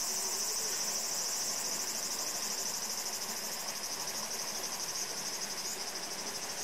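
Steady high-pitched insect chorus, a continuous fast-pulsing buzz that runs without a break.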